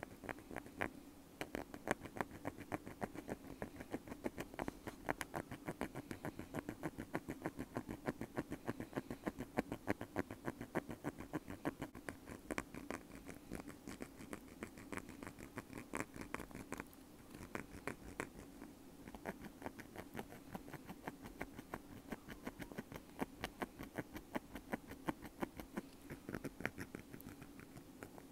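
Bamboo ear pick scratching right against a wired earphone used as the microphone: a rapid, rough scratching, many strokes a second, with a short lull about two-thirds of the way through.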